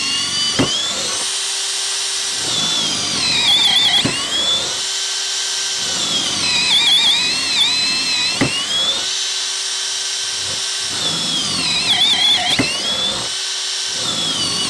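Makita XPH07 18V brushless hammer drill boring a series of holes into a wooden 4x4. The motor whine sags and wavers in pitch as the bit cuts, then climbs back as it runs free, over and over about every four seconds, with a sharp tick at each cycle.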